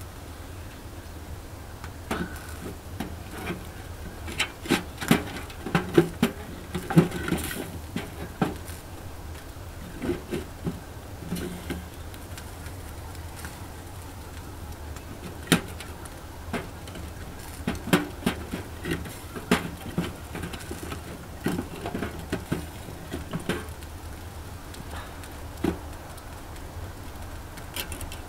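Irregular wooden knocks and light clicks as split firewood is handled and fed into a small titanium wood-burning stove, coming in clusters with pauses between. A steady low hum runs underneath.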